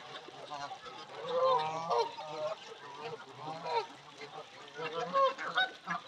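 A flock of Canada geese honking repeatedly, many overlapping calls, with the loudest honks about a second and a half in and again around five seconds in.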